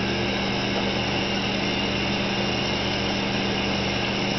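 Steady machine hum of a commercial kitchen, with a constant low drone and an even hiss that do not change.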